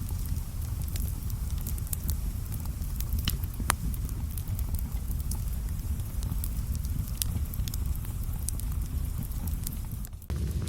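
Fire burning: a steady low rumble with scattered crackles and pops. The sound briefly drops away near the end, then the rumble comes back louder.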